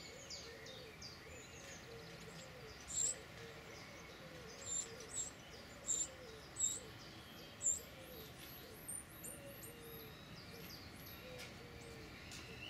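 Winter wrens at a nest box calling: a string of short, sharp, high chirps, about six louder ones between three and eight seconds in, with softer chirps around them and faint lower bird notes repeating underneath.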